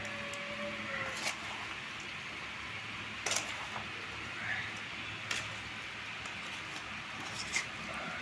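Lapsi (hog plum) pickle being stirred in a metal bowl: soft squishing with a few light clicks against the bowl, over a steady low hum.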